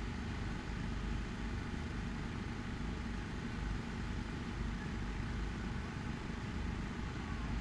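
Steady low outdoor background rumble with no firework bursts, like open-air ambience or a distant engine or generator running.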